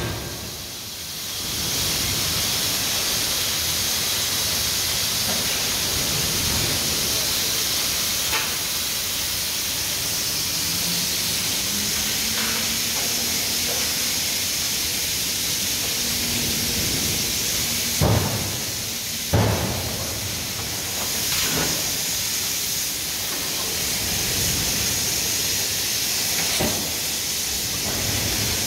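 Steady loud hiss of forge-shop equipment working hot steel, with two sharp knocks about eighteen and nineteen seconds in.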